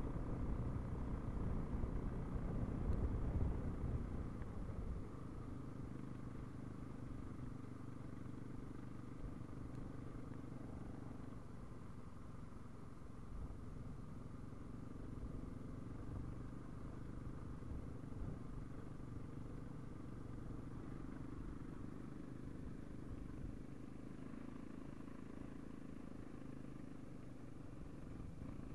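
Husaberg FE 570 dirt bike's single-cylinder four-stroke engine running under the rider, heard from a helmet camera. It is louder for the first few seconds, then settles quieter and steady.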